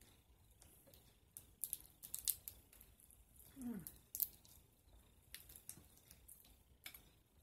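Boiled crawfish shells being cracked and peeled apart by hand close to the microphone: a scattered run of sharp crackling snaps, the loudest a little under two seconds in and again a little after four seconds.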